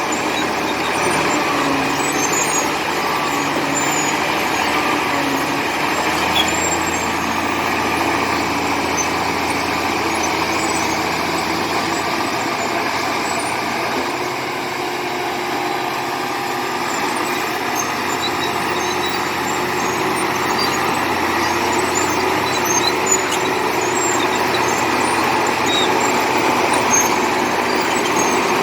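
Komatsu D70LE crawler bulldozer's diesel engine running steadily under load while pushing clay, its note dipping slightly and shifting about halfway through, with scattered faint clicks over it.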